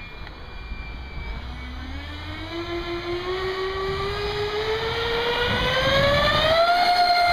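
RC model Su-35 jet's electric ducted fans spooling up for the takeoff run: a whine that rises steadily in pitch and grows louder, then holds level at full throttle near the end. Wind rumbles on the microphone at the start.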